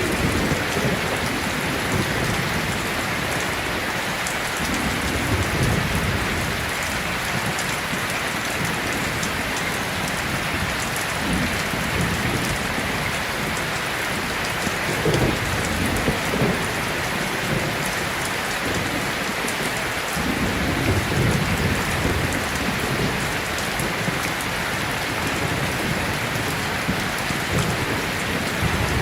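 Steady rain falling in an even, dense hiss, with a few brief low swells of rumble now and then.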